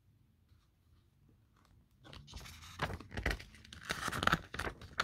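A picture book's paper page being turned: paper rustling and crinkling that starts about two seconds in, with a few louder flaps and a sharp snap near the end.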